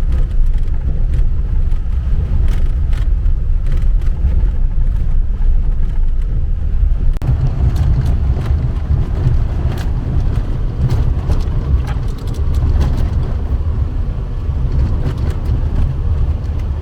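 Truck driving off-road on a rough dirt trail: a steady low engine and tyre rumble with frequent knocks and rattles, growing fuller and noisier about seven seconds in.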